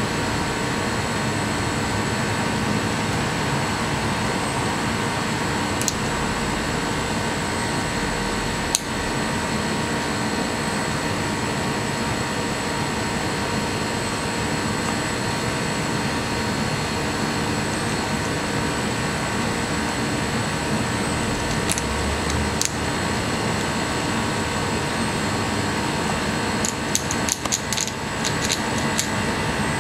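Fox squirrel gnawing a walnut shell: a few sharp clicks, then a quick run of them near the end. Underneath is a steady machine-like hum and hiss.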